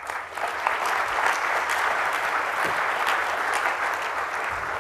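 Audience applauding. The clapping swells over the first second, then holds steady and eases slightly near the end.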